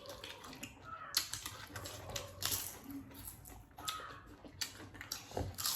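Eating noises: irregular wet clicks and smacks of chewing, with small knocks of food being handled.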